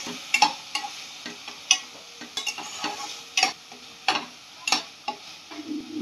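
White plastic spatula scraping and tapping against a nonstick kadhai, about twice a second, as chopped onion, tomato and green chilli-ginger-garlic paste fry in oil with a steady low sizzle. The paste is being sautéed until the oil separates.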